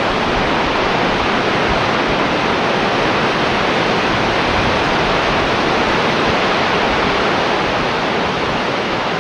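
Gullfoss waterfall roaring: a loud, steady rush of falling water that does not let up.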